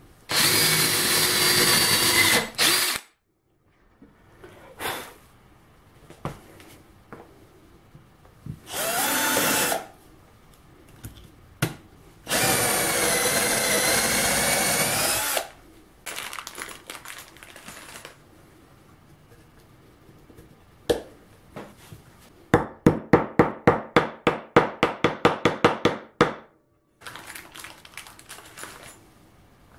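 Cordless drills boring holes in a wooden block: three runs of a few seconds each with a motor whine, separated by light knocks and handling. Later comes a rapid pulsing run of the tool, about four to five pulses a second, lasting a few seconds.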